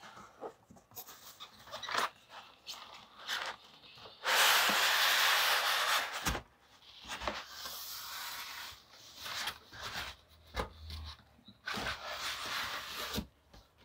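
A cardboard box scraping and rustling as a PC case packed in foam end caps and a plastic bag is slid out of it. There are scattered scrapes and knocks, and one loud, even scrape lasts about two seconds, starting about four seconds in.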